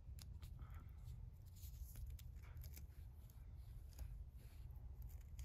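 Faint crackling and rustling of electrical tape being wrapped around a twisted wire splice, scattered small clicks over a low steady rumble.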